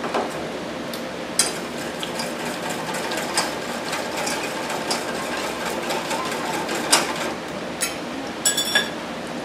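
Irregular metallic clinks and taps from a stainless-steel saucepan and kitchen utensils being handled on a gas stove, with a quick cluster of clicks near the end, over a steady hiss.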